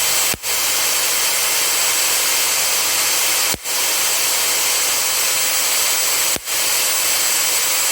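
A MiniSpark electrostatic generator runs with a steady, loud machine hiss as it charges its capacitor bank. About every three seconds, three times, the sound cuts out for an instant, in step with the sparks discharging across the gap.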